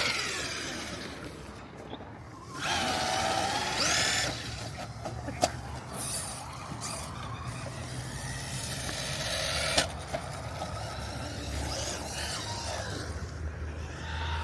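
Traxxas Mini Maxx RC monster truck driving, its electric motor whining and rising in pitch as it speeds up a few seconds in. Two sharp knocks, about five and ten seconds in.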